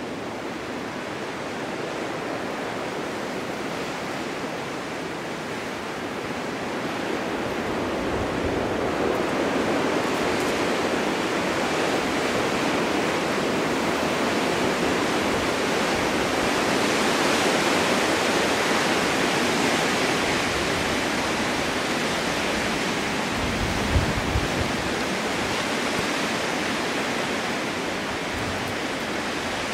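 Snowstorm wind blowing in a steady rush that swells into a stronger gust through the middle and then eases, with low buffeting thumps about 24 seconds in.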